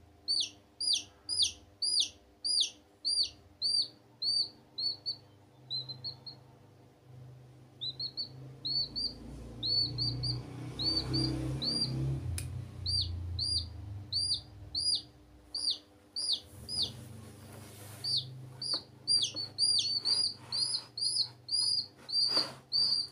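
Baby chicks peeping: a long run of short, loud chirps, each falling in pitch, about two to three a second, with a quieter stretch a few seconds in. A low rumbling noise sits underneath for a few seconds in the middle, and a few clicks come near the end.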